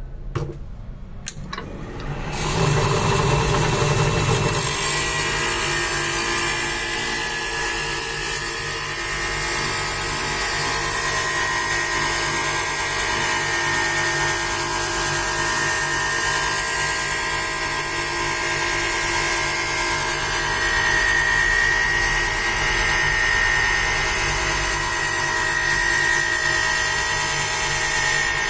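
Automatic optical lens edger grinding the edge of a bifocal spectacle lens against its spinning wheel. The machine starts up about two seconds in, then runs as a steady grinding with a high whine.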